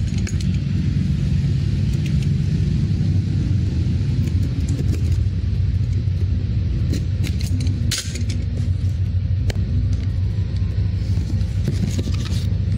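Loud, steady low rumble, with a few brief sharp clicks scattered through it.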